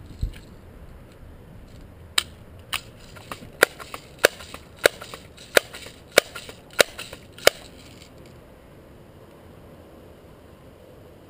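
Daisy BB gun making a string of about nine sharp clacks, roughly one every two-thirds of a second, stopping a little past the middle, after a dull thump at the start.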